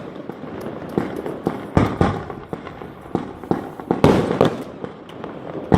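Fireworks going off: a rapid, irregular series of sharp bangs and cracks, with several louder booms, the biggest about two seconds in and about four seconds in.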